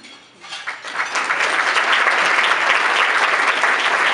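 Audience applauding, the clapping swelling about a second in and then holding steady.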